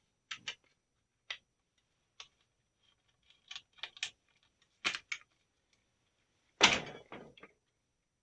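Small rifle's action and parts being fitted back into its stock by hand: scattered sharp clicks and knocks, with one louder knock about two-thirds of the way through followed by a few lighter taps.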